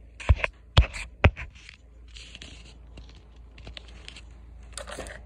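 Handling of a toy's card-and-plastic blister pack: three sharp knocks in the first second and a bit, then scattered scraping and crinkling.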